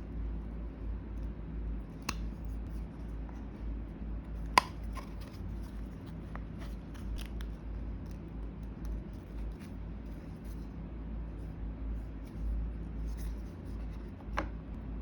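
Scattered light clicks and taps from small-scale crafting work on dollhouse wall and floor parts, over a steady low hum; one sharper click about four and a half seconds in.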